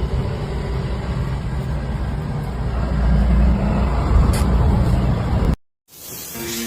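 A heavy vehicle's engine running with a loud low rumble that swells a little past the middle, then cuts off abruptly near the end.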